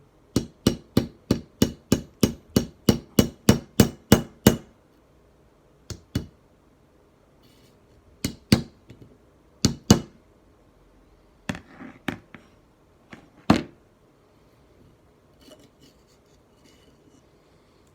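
Hammer tapping on the metal of a slip joint knife to take up blade play. A quick even run of about sixteen strikes, roughly four a second, then single and paired taps with pauses between them.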